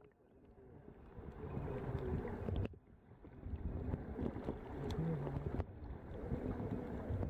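Muffled underwater rumble and sloshing of water moving around a submerged waterproof camera. It breaks off abruptly twice and picks up again.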